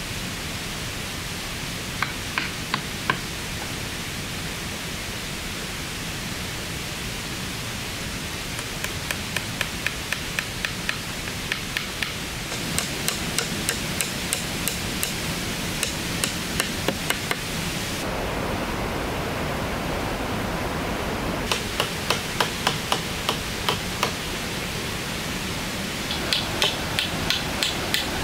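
Runs of quick, evenly spaced strikes, about three a second, over a steady hiss. The strikes stop for a few seconds in the middle.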